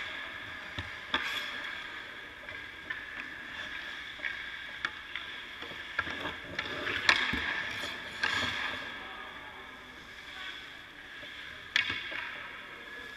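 Hockey skate blades scraping and carving on ice, broken by a few sharp clacks of pucks off sticks and goalie pads, the loudest about seven seconds in and again near the end, over a steady high hum.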